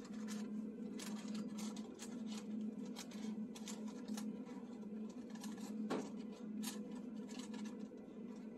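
Paper being rolled and folded by hand into a piping cone: light crinkles and quick ticks, one sharper crackle near the middle, over a steady low hum.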